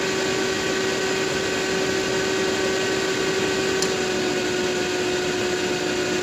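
Robinair A/C recovery machine running with a steady humming whir from its fan and motor. A small click comes a little under four seconds in, and the hum sags slightly as the fan takes the load. The owner calls this a red flag for more current draw than there should be.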